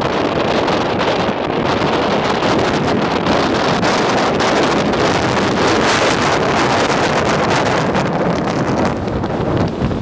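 Loud, gusty gale-force wind buffeting the microphone, with the wash of waves breaking on a rocky shore beneath it.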